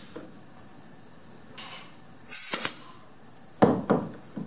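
Sharp knocks on wood as the door's head stop is set into the groove at the top of the door jamb: two pairs of quick knocks, then a lighter one just before the end.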